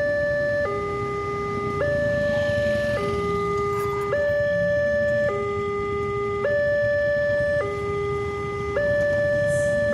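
Railway level-crossing warning alarm sounding a two-tone electronic signal. It alternates between a higher and a lower tone, each held a little over a second, which signals that a train is approaching.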